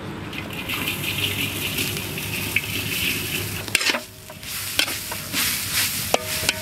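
Food sizzling and being stirred in a hot cooking pan. The sizzle drops out briefly about four seconds in, and a few metallic clinks of a utensil against the pan come near the end.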